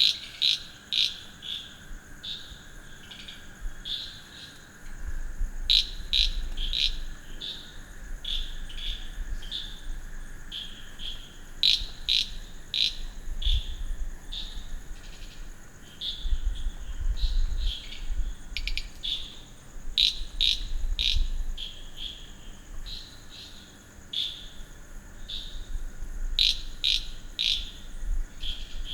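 Night chorus of frogs and crickets: a steady high insect drone under short chirping calls that repeat several times a second in irregular clusters.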